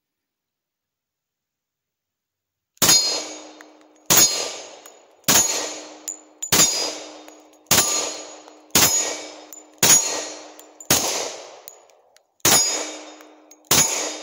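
Glock 20 Gen 4 10 mm semi-automatic pistol fired in slow, steady single shots, about one every second and a bit, ten shots starting about three seconds in. Most shots are followed by a ringing clang from the struck metal sign target.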